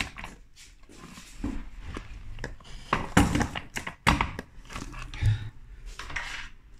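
Handling noise as the large K9 model is turned around and the phone is moved close to its wiring: irregular knocks, bumps and rubbing, with several sharper knocks in the middle.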